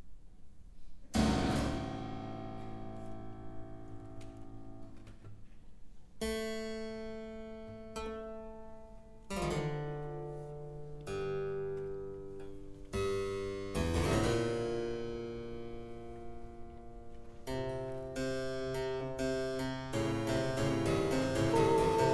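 Harpsichord playing slow, separate chords, each ringing out and fading. The chords are spaced several seconds apart at first and come closer together later on. Long held tones join in near the end.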